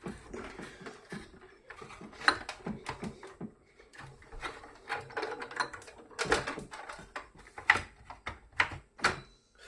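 Irregular clicks, taps and knocks with light rustling: parts of a polypropylene pipe welding kit, its heating nozzles among them, being handled and set down.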